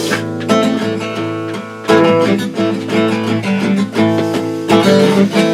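Strummed acoustic guitar playing chords between sung verses of a folk-style song.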